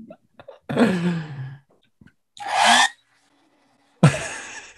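People laughing in three short bursts, with pauses between them.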